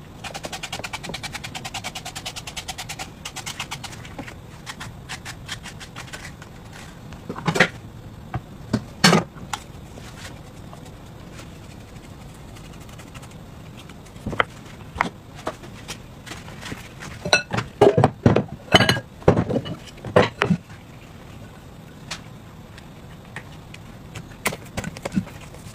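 A cucumber being turned through a handheld spiral slicer, a fast crisp crackle of the blade shaving the skin for the first few seconds. Then scattered knife taps and knocks on a plastic cutting board, with a cluster of loud knocks about two thirds of the way through.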